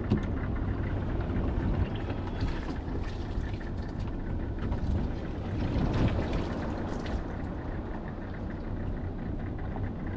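Small fishing boat under way: a steady motor drone with water rushing along the hull, and brief splashing of water in a bait bucket about six seconds in.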